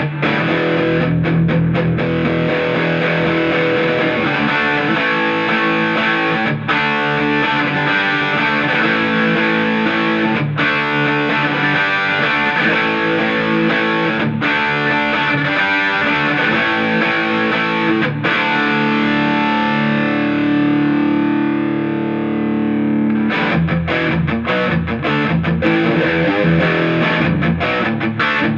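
Dean Vendetta 1.0 electric guitar played through an amp with distortion: riffs and picked passages, then, about two-thirds of the way in, a chord held and left to ring for about four seconds before the playing picks up again.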